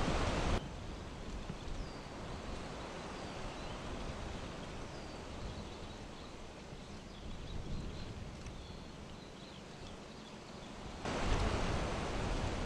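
Wind rushing on the microphone, dropping abruptly after about half a second to a quieter rustling hiss with faint high bird chirps, then rising again to loud wind noise about eleven seconds in.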